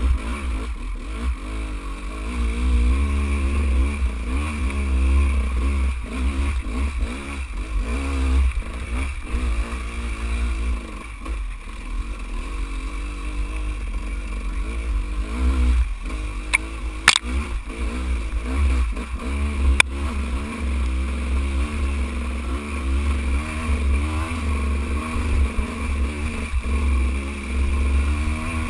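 Dirt bike engine running at low trail speed, its revs rising and falling constantly as the rider works the throttle over rocks. Two sharp knocks stand out a little past halfway.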